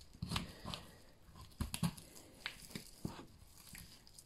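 Boning knife cutting and scraping around the bone of a raw lamb leg, with soft, irregular clicks and wet handling noises as the meat is pulled back from the bone.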